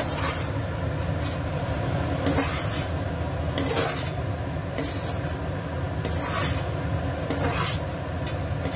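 A metal spatula scraping the cooking pan in short hissing strokes, about one every second or so, over a steady low rumble.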